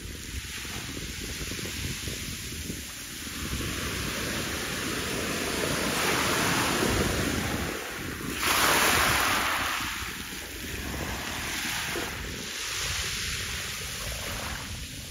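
Wind buffeting the microphone: a steady rushing noise that swells in two stronger gusts a little past the middle, over the sea.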